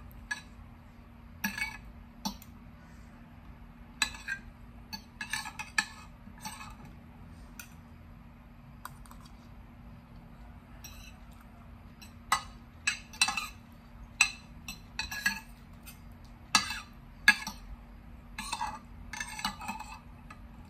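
Metal fork and spoon clinking and scraping against a plate while eating noodles: scattered sharp clicks and short runs of clatter, over a faint steady hum.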